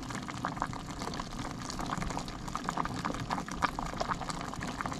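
Pot of fish broth with lemongrass and vegetables boiling, a steady dense bubbling patter.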